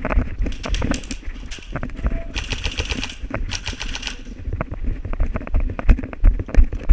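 Airsoft guns firing two rapid full-auto bursts of about a second each, a little over two seconds in, among scattered single clicks, with low thumps and rustling of movement against the camera.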